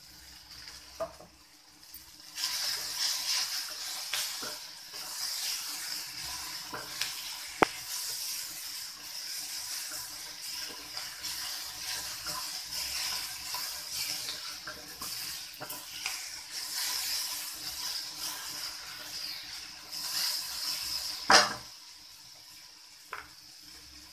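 Cabbage and potatoes sizzling in oil in a nonstick kadhai while a metal spatula stirs in the spices, with steady scraping and small clicks. It grows louder about two seconds in, and a sharp knock on the pan comes about 21 seconds in, after which the sizzling is much quieter.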